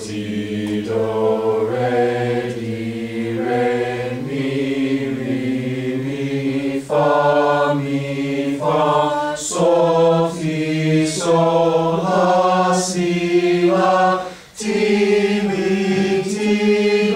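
A class singing solfège syllables together in a sight-singing scale exercise. The voices hold one note about every second and step up and down through the scale, pausing briefly about 14 seconds in.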